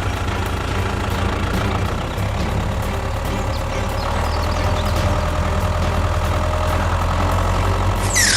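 Engine running steadily at idle, a continuous low hum. Just before the end a bright whoosh falls sharply in pitch.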